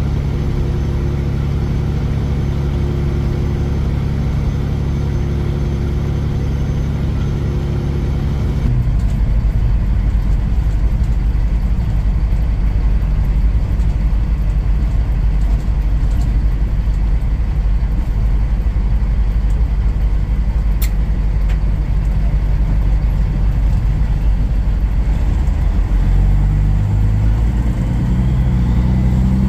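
A semi truck's diesel engine and road noise heard from inside the cab while driving. The steady engine tone changes abruptly about nine seconds in to a lower, rougher sound, a single brief click comes about two-thirds of the way through, and near the end the engine's pitch rises as it pulls.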